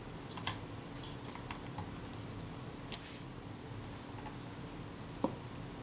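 Small screwdriver clicking and tapping against the front screws and metal body of a Kodak Retina IIIS camera as the front plate is screwed down: scattered light ticks, with one sharp click about three seconds in and another near the end.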